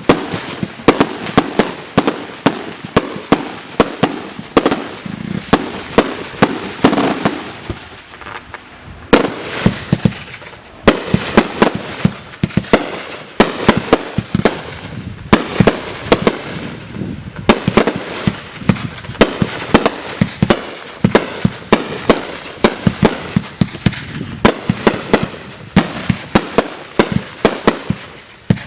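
Fireworks going off in a continuous barrage: sharp bangs and crackles several times a second, thinning out briefly about eight seconds in and again near eleven seconds.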